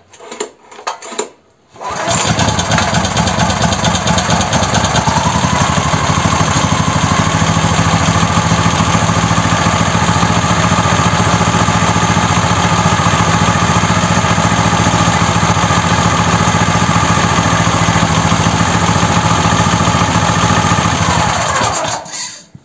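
Brait 17 hp single-cylinder petrol engine pull-started on its recoil starter: a couple of quick rope pulls, then it catches about two seconds in. It runs steadily, its speed rising slightly a few seconds after starting, then winds down and stops near the end.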